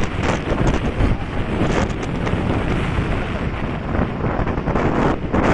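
Wind buffeting the microphone on a moving two-wheeler, a loud, continuous rush with road and engine noise of the ride underneath.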